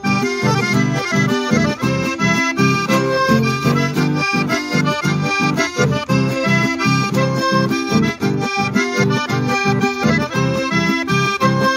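Solo diatonic button accordion playing an instrumental passage of a chamamé, with a melody in the right hand over bass-and-chord accompaniment that pulses in a steady rhythm.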